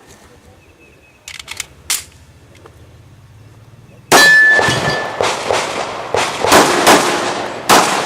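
Handgun shots fired in a string from about four seconds in, with steel targets clanging and ringing as they are hit. A few light clicks of gun handling come before, around a second and a half in.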